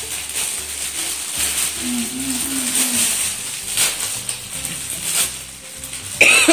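Plastic carrier bag and clear plastic wrapping rustling and crinkling as items are handled and pulled out. A short, loud, high-pitched squeal comes near the end.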